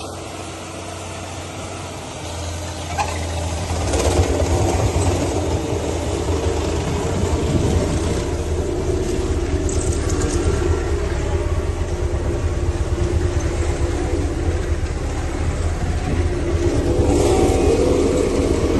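Road roller's diesel engine running with a low steady rumble, getting louder about four seconds in as it works.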